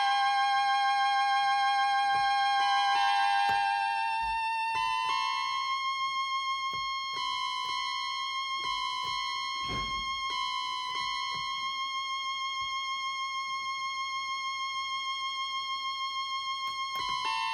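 Instrumental music with a sustained, violin-like lead. Over the first few seconds the chords change, then a single long note is held for about twelve seconds with a slow waver in loudness.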